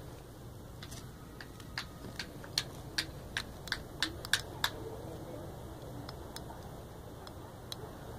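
A puppy's claws clicking on concrete as it scampers, about a dozen sharp irregular clicks over some four seconds, then a few fainter ones near the end.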